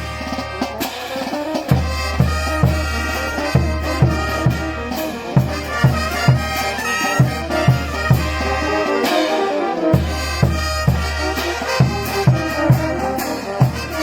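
Brass band music with a steady drum beat, about two beats a second, over a sustained bass line.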